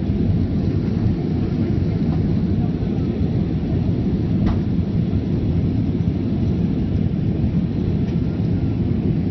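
Steady low rumble of an airliner's cabin in flight: engine and airflow noise heard from inside the cabin, with a faint click about four and a half seconds in.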